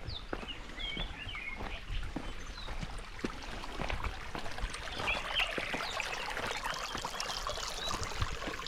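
Birds chirping in short calls, twice in clusters, over a steady wash of running water with scattered small clicks.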